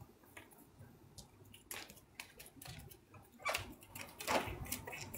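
Faint, scattered rustles and soft thumps of a person dancing and jumping without music, with a few louder ones about two-thirds of the way through.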